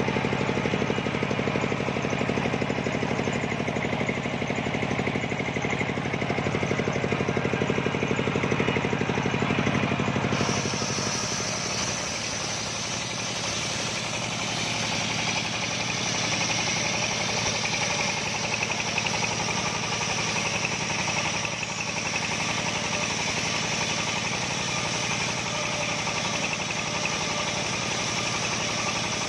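Engine-driven homemade circular sawmill running steadily. About a third of the way in, the sound changes to a steady high whine with hiss as the large circular blade rips lengthwise through a coconut log.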